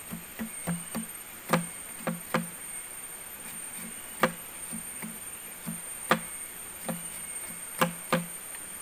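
A string of sharp knocks or chops, one to two seconds apart and sometimes in quick pairs. They sound over a steady high-pitched insect drone and a soft low pulsing about three to four times a second.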